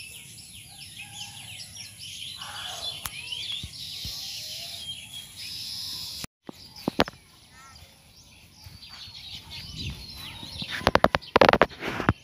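Many small birds chirping busily, with a sudden break about six seconds in. Near the end, a run of loud knocks or thumps covers the birdsong.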